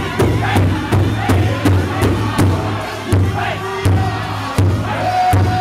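Powwow drum group: several men beating a large hide drum in unison with padded sticks, a steady beat of nearly three strokes a second, while they sing high-pitched over it, holding a high note near the end.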